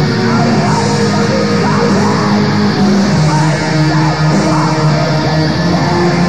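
Raw black metal music: a loud, dense wall of guitar with held notes.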